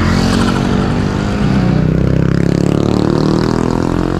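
A motor vehicle's engine passing close by on the road, growing loudest about two seconds in as it goes past.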